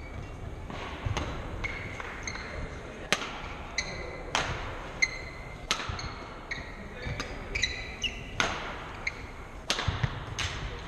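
Badminton rally: rackets striking the shuttlecock in a string of sharp hits about every one to two seconds. Between the hits, shoes squeak briefly on the wooden court floor over a low crowd murmur.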